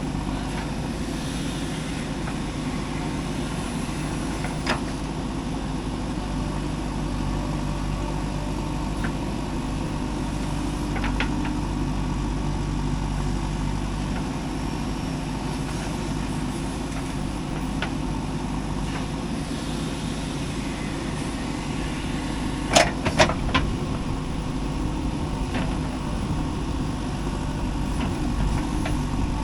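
Diesel engine of a JCB 3DX backhoe loader running steadily while it loads mud into a dump truck. A single sharp knock sounds early, and a quick cluster of three or four louder knocks comes about three-quarters of the way through.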